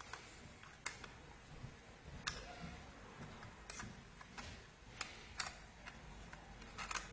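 Faint, scattered small clicks and light scraping from the metal parts of a wind-up alarm clock's movement as a piece is pried off by hand, about one click every second or so.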